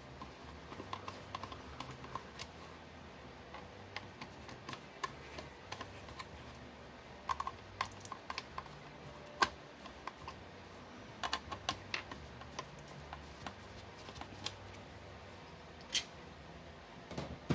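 Faint, irregular small clicks and taps of a screwdriver backing screws out of a 3D-printed plastic project box while the box is handled, with a few sharper clicks in the middle and near the end.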